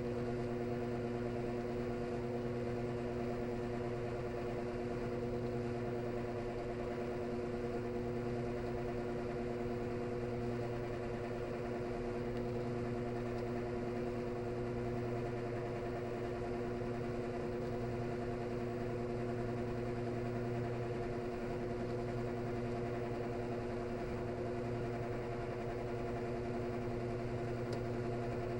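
Washing machine drain snoring: a steady drone with a low hum that swells and fades every few seconds.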